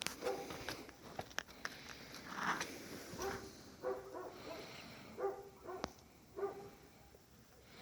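A dog giving several short barks spread through, with a few sharp clicks between them.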